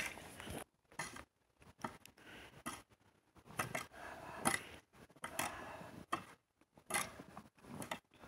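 Snow being cleared with a long-handled shovel: irregular crunching, scraping strokes of the blade through packed snow, each lasting under half a second and coming every second or so.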